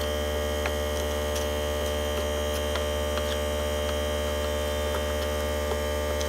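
A steady low electrical hum with several fixed tones above it, and a few faint clicks.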